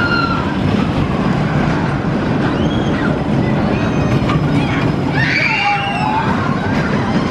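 Pax-built steel roller coaster train rumbling steadily along its track, with riders screaming briefly, loudest about five to six seconds in.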